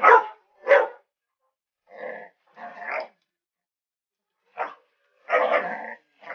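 A puppy barking at an alligator head in short bursts: two sharp, loud barks at the start, a few more after a pause, and a longer run of barks about five seconds in.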